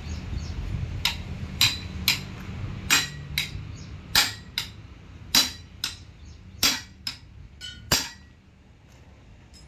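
Hammer striking the steel track rollers of a crawler harvester's undercarriage while they are being dismantled: about a dozen sharp metallic clanks, roughly two a second, each with a brief ring, stopping about eight seconds in.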